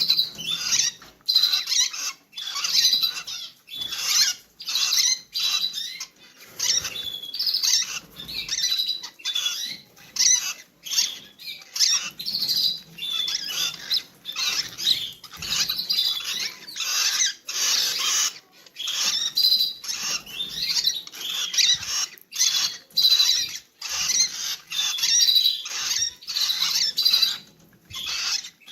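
Rosy-faced lovebirds calling in a continuous run of short, high-pitched squeaky chirps, several a second.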